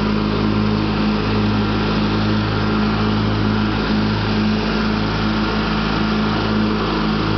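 Craftsman LT1000 riding lawn tractor's engine running at a steady speed while mowing.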